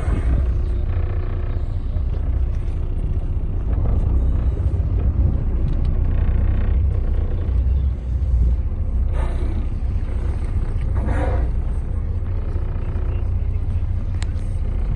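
Steady low rumble aboard a small boat on open water, with faint voices around the middle.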